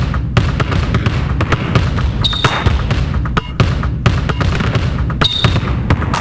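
Basketball dribbled hard in a quick, rhythmic pattern over a steady low beat. A short, high squeak comes in about every three seconds.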